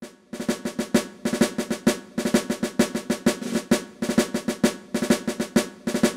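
Intro music: a snare drum cadence of fast, sharp strikes and rolls in a steady rhythm.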